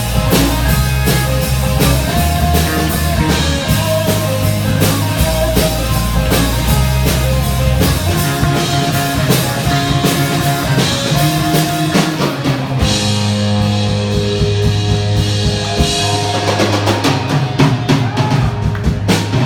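Instrumental rock music with drums, bass and guitar, a steady beat throughout.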